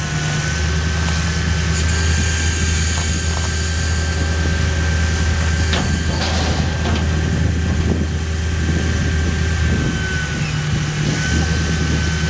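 Excavator diesel engine running under load with a steady hydraulic whine, as an Indeco ISS 10/20 hydraulic shear works on a steel tank wall; a few short sharp metal cracks come from the sheet steel being torn. The whine dips briefly near the end.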